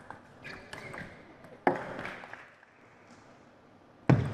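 Table tennis rally: sharp knocks of the ball and bats, with a few faint ticks at first, a hard strike with a short ringing tail a little under two seconds in, and the loudest strike just before the end.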